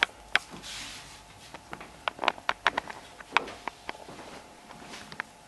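Footsteps on a hard floor: a string of sharp, irregular clicks, with a brief soft rush of noise about half a second in.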